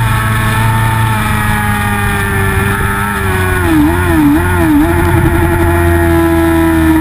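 Onboard sound of a racing motorcycle at speed: the engine runs steadily at high revs under a rush of wind noise. About halfway through, its pitch dips and recovers three times in quick succession, then holds steady as the bike leans into the turn.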